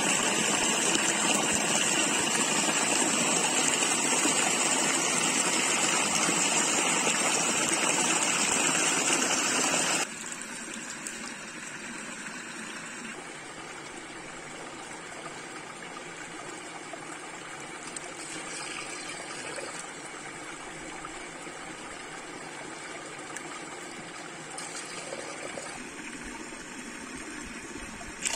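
Running water: a loud, steady rush for about the first ten seconds, then a sudden cut to a quieter, steady flow.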